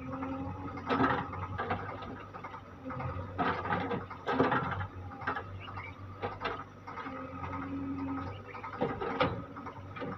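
Diesel engines of a backhoe loader and an Eicher 548 tractor running steadily, with several louder bouts of clatter as the excavator bucket tips earth and stones into the tractor's trolley.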